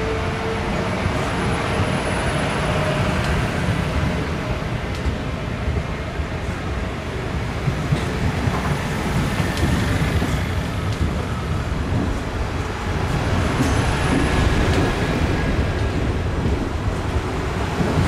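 A train running on the rails: a continuous rumble with scattered light clicks and a faint whine at times.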